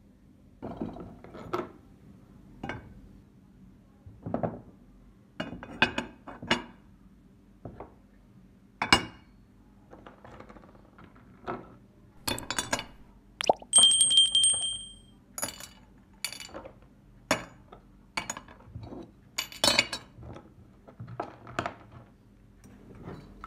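Rusty carbon-steel pistol parts being set down into a white casserole dish, clinking and knocking against the dish and each other in irregular strikes. About halfway through, a bright ringing tone holds for about a second.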